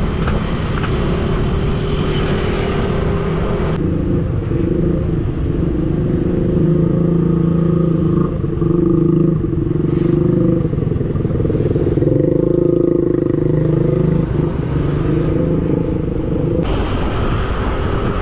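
Yamaha NMAX scooter's single-cylinder engine running steadily under way, heard from the rider's position with wind rushing on the microphone. The wind noise drops suddenly about four seconds in and comes back near the end.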